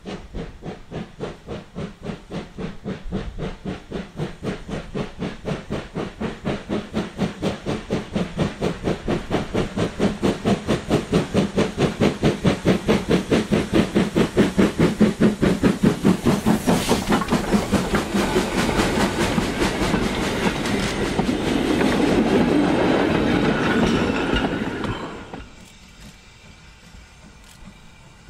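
LMS Ivatt Class 2MT 2-6-0 steam locomotive working a mixed freight, its exhaust chuffing in rapid, even beats that grow louder as it approaches. As it passes, the beats give way to a steady rumble and clatter of the train rolling by, which cuts off suddenly near the end.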